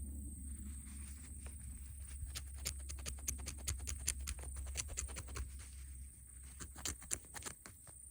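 A dug-up copper halfpenny being rubbed and scraped clean by hand: a run of quick, irregular scratchy clicks, busiest in the middle, over a steady low hum.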